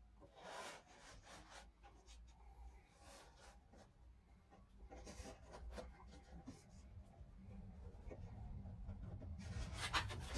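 Faint rubbing and scraping with scattered light knocks from a hand working inside a car door's inner panel, against the metal frame and the loosened window glass, with a louder knock near the end.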